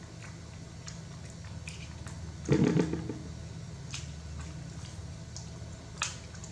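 A plastic spoon clicking against a small plastic snack cup and wet eating sounds as a baby macaque is spoon-fed, over a steady low hum. A short, louder noise about two and a half seconds in stands out above the rest.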